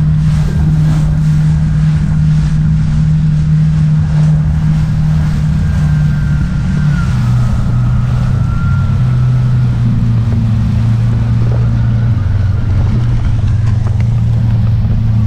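Jet ski engine running steadily under way, with wind on the microphone and water rushing past the hull. The engine note drops a little about seven seconds in.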